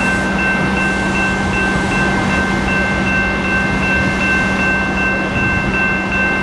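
BNSF diesel-electric road-switcher locomotive running while stopped, a steady loud drone with constant high whines over it.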